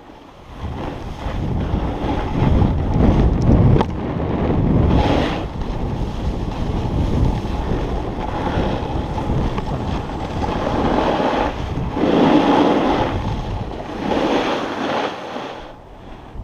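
Wind rushing over an action camera's microphone as a snowboard slides downhill over groomed snow, the rush swelling and easing in waves with the board's turns. It picks up about half a second in and drops away near the end, with one sharp click partway through.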